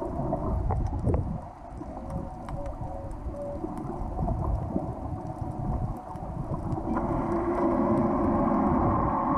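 Underwater ambience picked up by a submerged camera: a muffled low rumble of moving water with scattered faint clicks. About seven seconds in, a louder steady hum with several tones sets in.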